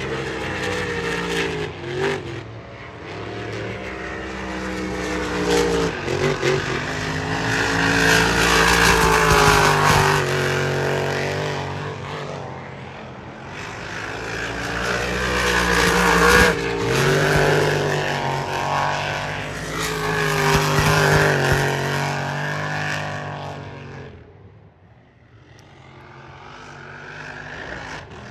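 Race boat engines running hard at high revs as the boats speed past, the pitch and loudness rising and falling with each pass. The sound fades briefly near the end, then builds again.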